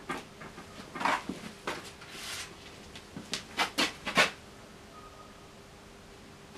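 Paint being worked onto a stretched canvas: a run of short scraping strokes in the first four seconds, then only a faint steady hum.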